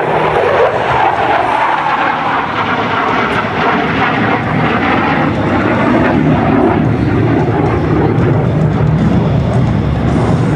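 F-16 Fighting Falcon's single turbofan engine: loud, steady jet noise as the fighter flies its display, getting deeper in the second half.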